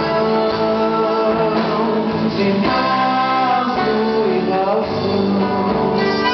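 Live band playing a song: a man singing over acoustic guitars, with accordion, drums and electric guitar on stage.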